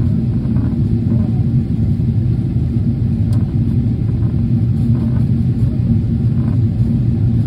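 Steady low rumble of airliner cabin noise, engines and airflow together, heard inside a Boeing 777-300ER on its descent, with a constant low hum.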